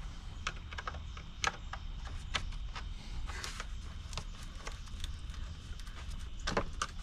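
Screwdriver loosening a worm-gear hose clamp on the air intake tube: irregular light clicks and ticks of metal on metal, over a low steady hum.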